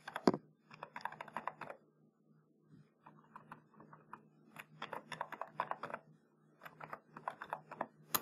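Typing on a computer keyboard: short runs of quick keystrokes with brief pauses between them, and a single sharper click right at the end.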